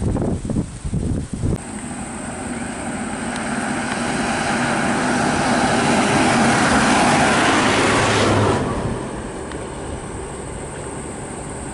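Wind buffeting the microphone briefly at the start. Then a road vehicle's engine and tyre noise grows steadily louder for several seconds and drops off sharply about eight and a half seconds in, leaving a quieter running engine.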